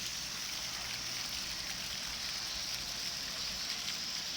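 Steady hiss of splashing water.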